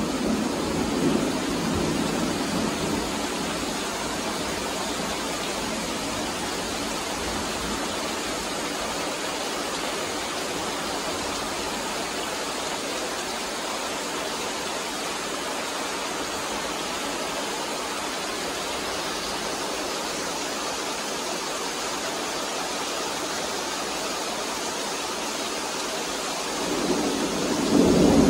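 Heavy rain pouring down in a steady, even hiss. A rumble of thunder dies away in the first few seconds, and another low rumble of thunder swells up near the end.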